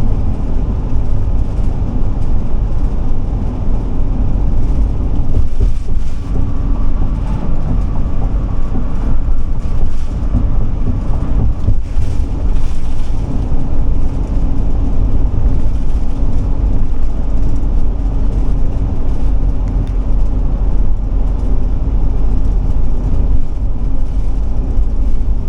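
Ford E-450 Class C motorhome driving at highway speed, heard from inside the cab: a steady drone of engine and road noise with a low hum.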